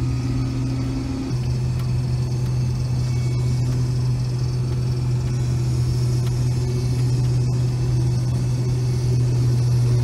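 Combine harvester running steadily while harvesting corn, heard from inside the cab: an even, low drone with a constant hum. A higher, fainter tone in the mix drops out about a second in.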